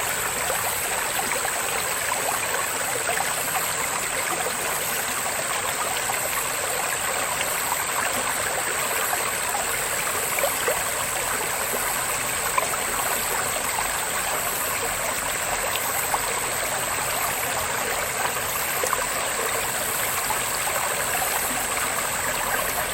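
Loud, steady chorus of cicadas: an unbroken high drone over a dense, even hiss, with faint bird chatter scattered through it.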